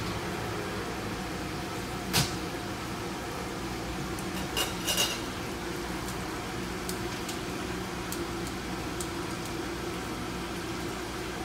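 Steady low machine hum, with a sharp knock about two seconds in, two or three quick clinks near the middle and a few faint ticks after.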